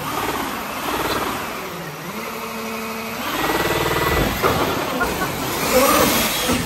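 Petrol two-stroke engine of a large-scale Primal RC Game Over monster truck, revving up and down as it drives, with a sharp knock about four seconds in.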